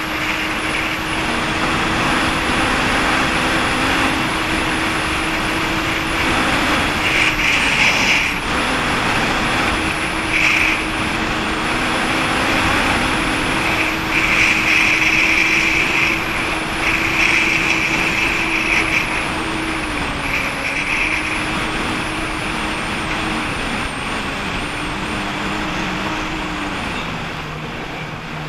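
Jet ski engine running at a steady speed under water rushing noise, with several short hissing bursts. Near the end the engine note drops to a lower pitch as it slows.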